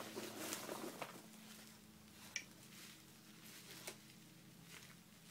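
Faint rustling and a few soft clicks as a wrapped item is handled and lifted out of a cardboard box, with one small clink a little over two seconds in. A low steady hum sits under it.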